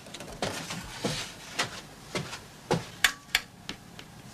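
Footsteps on a wooden staircase: a string of dull wooden knocks, about two a second.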